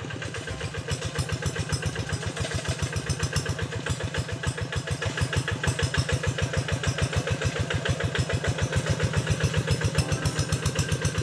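A diesel hand tractor engine chugging steadily at idle, about eight even beats a second, growing a little louder from about halfway through.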